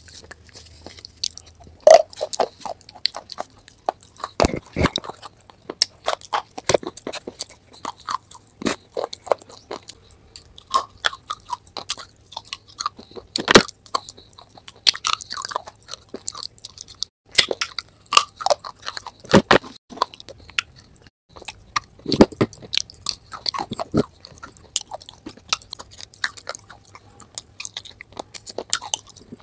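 Close-miked biting and chewing of crunchy, chalky clay-like pieces coated in a wet creamy paste, with many sharp, irregular crunches; the loudest come about two seconds in and near the middle.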